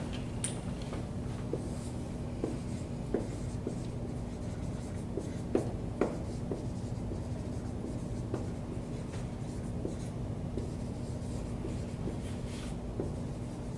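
Someone writing by hand: irregular short scratches and taps of the pen or marker, a few sharper ones about halfway through, over a steady low room hum.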